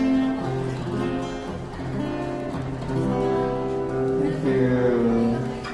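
Acoustic guitar strummed and picked, playing the closing bars of a Cantopop ballad, with long held notes.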